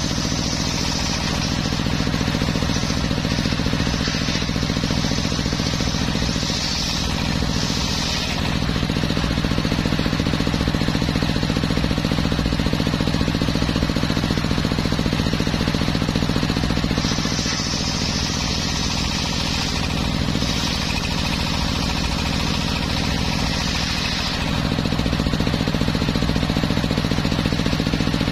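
Homemade circular sawmill running with a steady mechanical drone, a higher hiss swelling and fading a few times as the blade cuts through teak timber.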